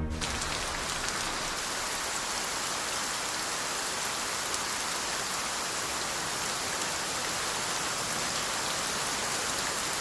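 Steady heavy rain falling and splashing on surfaces, an even hiss without pauses.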